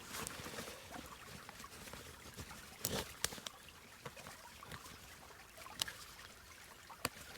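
Stream trickling faintly and steadily, with a few short sharp clicks and rustles of a canvas bag being handled.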